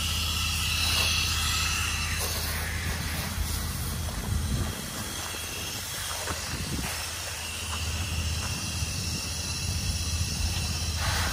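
Pressure washer spraying a sodium hypochlorite and surfactant solution through a long-range soap nozzle on a J-rod wand. A steady hiss of spray sits over the machine's low steady hum, pushing about 6 gallons per minute at about 40% power.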